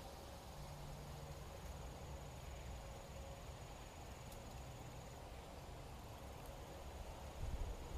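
Faint outdoor background: an insect trilling steadily at a high pitch over a low rumble. The trill stops about five seconds in.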